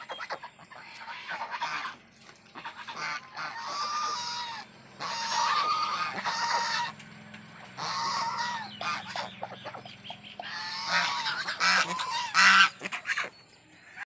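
White domestic geese honking in four bouts of several calls each, the loudest bout near the end, with quieter gaps between.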